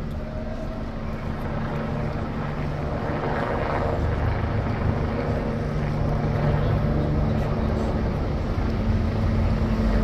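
A motor engine running with a steady low hum over general street traffic noise, getting slightly louder toward the end.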